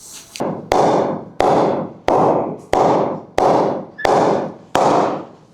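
Refurbished Kookaburra cricket bat struck about seven times at a steady pace, each knock ringing briefly: the bat's ping, or punch, being tested.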